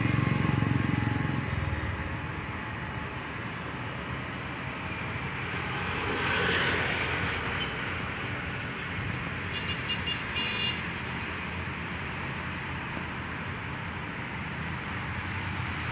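Road traffic running past steadily, with a louder low rumble that fades within the first two seconds and another vehicle swelling past about six seconds in. A quick series of high horn toots sounds about ten seconds in.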